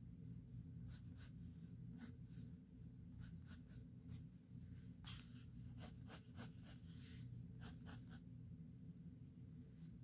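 Pencil scratching across drawing paper in a run of quick, short sketching strokes, which stop near the end.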